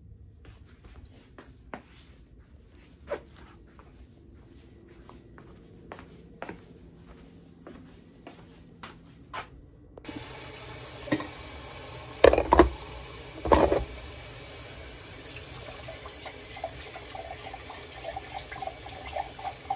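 Faint scattered clicks, then a steady rush of water suddenly takes over, with two loud knocks or bangs soon after.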